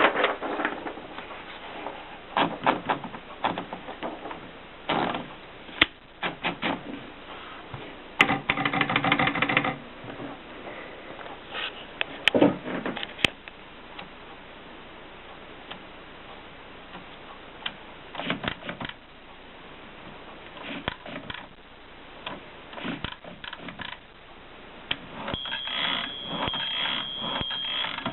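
Erika 5 portable manual typewriter being worked: sharp mechanical clicks and clacks, singly and in short irregular runs, with a longer dense rattling run about eight seconds in.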